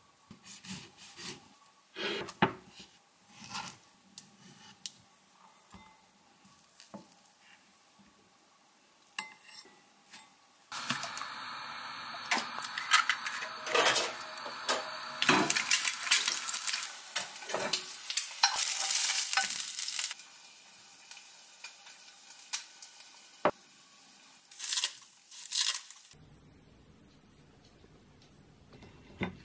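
Kitchen clatter of dishes and utensils, scattered knocks and clicks. About ten seconds in, an egg frying in oil in a nonstick pan sets up a steady sizzle for about ten seconds, with clicks over it. A few more sharp knocks come near the end.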